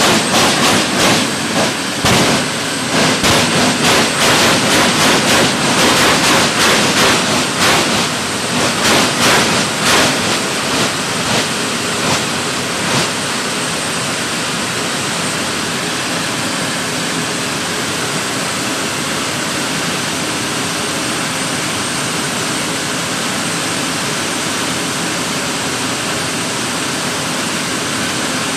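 Jet funny cars' turbine engines running at the start line: a loud, dense rush of noise with a faint high whine. It pulses unevenly for about the first dozen seconds, then settles into a steady rush.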